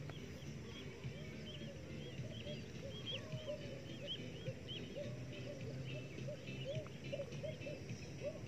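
Faint animal calls: short chirping notes repeating a couple of times a second, some low and some high, over a faint steady background hum.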